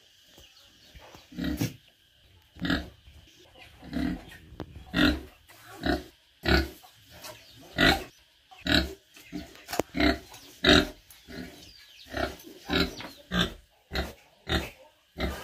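Pig grunting over and over, a string of short grunts about one to two a second, coming closer together in the second half.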